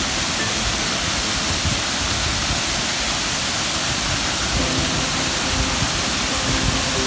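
Water pouring down a waterfall: a steady, unbroken rushing noise.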